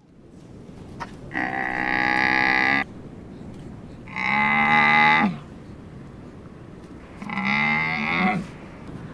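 Dromedary camel calling three times, each a long drawn-out bleating bellow of about a second or more; the second call drops in pitch as it ends.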